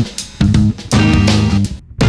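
Background music led by guitar over drums, in short rhythmic stabs with a brief break near the end.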